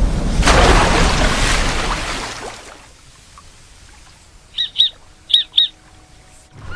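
A loud rushing noise lasting about two and a half seconds, then four short, sharp, high bird calls in two quick pairs about half a second apart.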